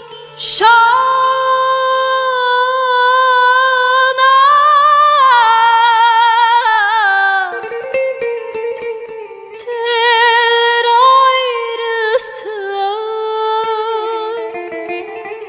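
A woman singing two long wordless phrases, holding notes with a wavering vibrato and sliding slowly between pitches, over a quiet plucked string accompaniment.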